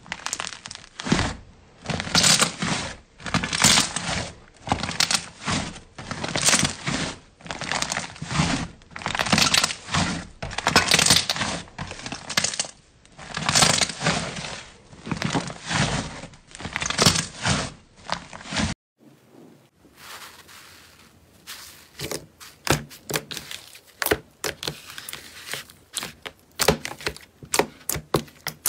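Hands squeezing, folding and stretching a thick slime, giving repeated bursts of crackling and crinkling about once a second. About two-thirds of the way through, the sound changes abruptly to a quieter run of quick, sharp clicks and pops as a glossier slime is squeezed and poked.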